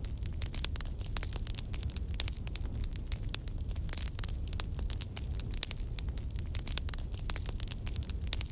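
Crackling fire sound effect: dense, irregular small pops and crackles over a steady low rumble.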